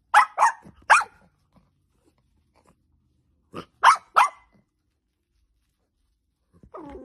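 Dachshund barking: three sharp barks in quick succession, a pause of about three seconds, then two more barks.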